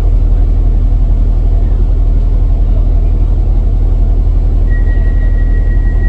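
Steady low rumble inside a passenger train carriage, with a thin steady high tone coming in near the end.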